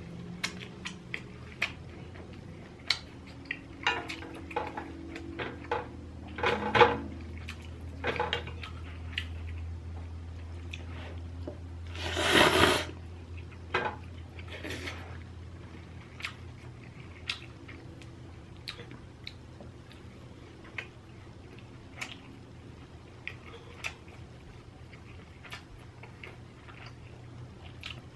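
Mukbang eating sounds: scattered light clicks of utensils against dishes and moist chewing of inari sushi (fried bean curd pouches stuffed with rice), over a steady low hum. About twelve seconds in comes a louder noisy rush lasting about a second.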